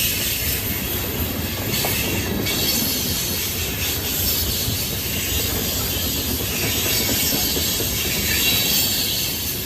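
Freight train tank cars rolling steadily past close by: a continuous rumble of steel wheels on the rails, with a high-pitched wheel noise above it.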